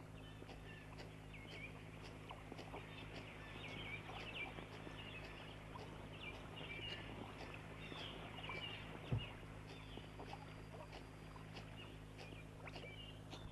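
Small forest birds chirping and twittering over a steady low hum, with one short thump about nine seconds in.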